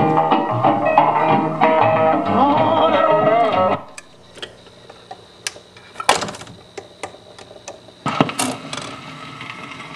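A 78 rpm record playing through the restored 1946 Espey Model 641 electric phonograph: a sung number with guitar that stops abruptly about four seconds in. A much quieter stretch follows, with a steady low hum and scattered clicks, including two louder knocks.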